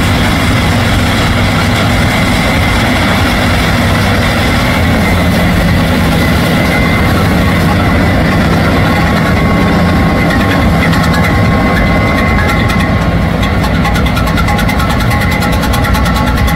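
John Deere CH570 sugarcane harvester's diesel engine running steadily under load as the machine cuts standing cane, with a thin high whine over the engine sound and a second, lower whine joining about nine seconds in.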